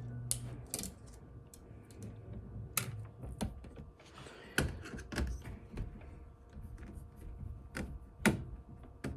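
Small irregular clicks and taps of a screwdriver and screws against a laptop's plastic case and internal parts, as the fan screws are worked loose.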